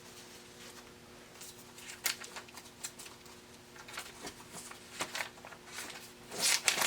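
Paper rustling as pages are handled and turned, in scattered soft rustles with a louder burst near the end.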